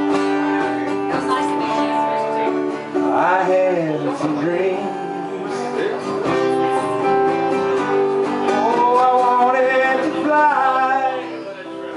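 Acoustic guitar strummed steadily while a man sings, his voice coming in as two phrases over the chords.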